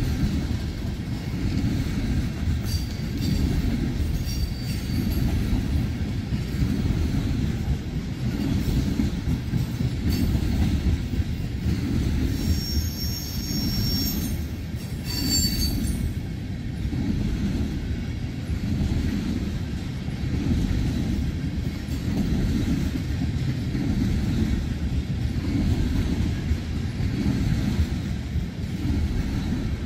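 Freight train of loaded-looking tank cars rolling past: a steady low rumble of wheels on rail, with high wheel squeals briefly about twelve and fifteen seconds in.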